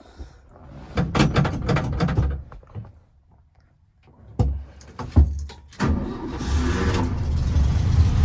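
A run of clicks and knocks, then two heavy thumps. After them a VW Beetle's air-cooled flat-four engine starts on the first try, about six seconds in, and settles into a steady idle.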